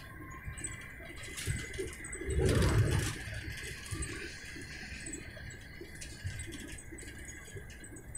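Interior noise of a Heathrow Express Class 332 electric train at the gangway between carriages: a low rumble with a steady high hum and scattered light clicks and rattles. The rumble swells louder for about a second near the middle.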